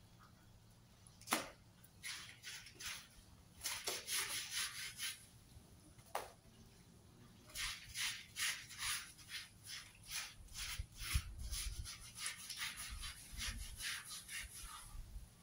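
Stiff-bristled scrub brush scrubbing a wet, soapy fabric floor mat in quick back-and-forth strokes, about three a second. The strokes come in short spells at first, then run steadily from about halfway through.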